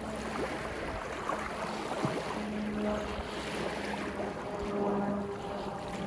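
Small sea waves washing and lapping over rocks and seaweed along a rocky shoreline, swelling and easing in gentle surges, with a faint low hum underneath that comes and goes.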